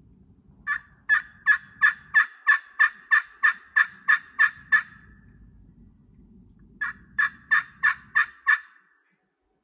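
Turkey yelps played on a 3-inch Kingwood pot call with a brass striking surface over a slate soundboard, worked with a striker. A run of about a dozen evenly spaced yelps, about three a second, then a pause and six more.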